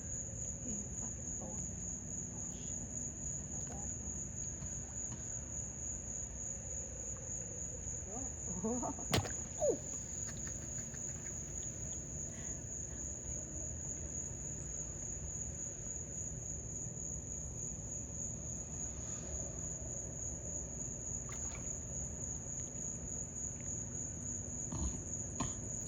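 Steady high-pitched chorus of night insects trilling without a break, over a low background hum. Two sharp, sudden sounds stand out about nine seconds in.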